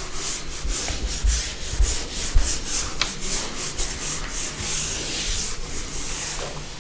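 Marker or chalk writing on a board: repeated scratching strokes, about three a second, with a few low bumps around the middle.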